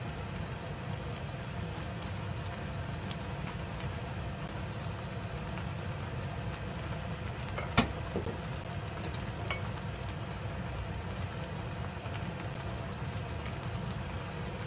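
A pot of kimchi and Spanish mackerel stew simmering on a gas stove, a steady bubbling crackle over a low rumble. A sharp metal clink about eight seconds in as the spoon touches the pot, followed by a few lighter ticks.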